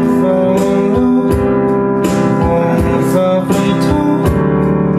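Background pop music with guitar and a regular beat.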